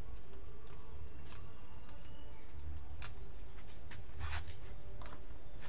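Goods and plastic being handled on shop shelves: a few short clicks and rustles, the longest a little over four seconds in, over a steady low rumble.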